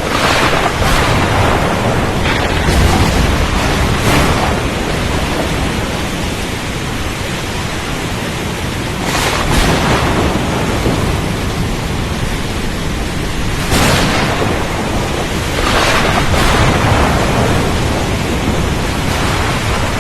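Storm at sea: a constant rushing noise that swells into louder surges every few seconds, with a low rumble in the first few seconds.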